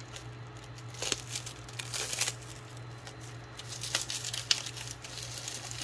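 Plastic packaging bags crinkling in irregular rustles as a bag of parts is handled and opened by hand, over a steady low hum.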